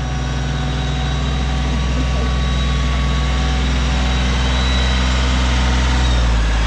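Kioti compact diesel tractor engine running steadily under load as it pulls a back blade along a dirt road, growing gradually louder as it comes closer. Its note shifts slightly near the end.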